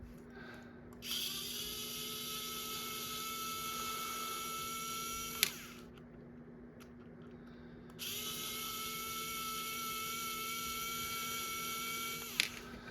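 Small electric screwdriver running in two steady whining runs of about four seconds each, with a click as the first run stops, backing screws out of the back of a lock cylinder.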